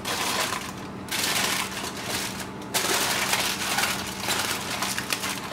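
Aluminium foil crinkling and crackling as hands fold and crimp it down over a pan, in spells broken by brief pauses about one second in and again about two and a half seconds in.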